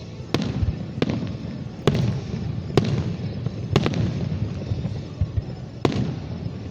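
Fireworks going off in a show: about seven sharp bangs at uneven intervals, roughly one a second, over a steady low rumble.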